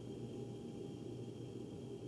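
Steady low hum with a faint hiss from forced-air ductwork. It stays even throughout, with no tapping or knocking in these seconds.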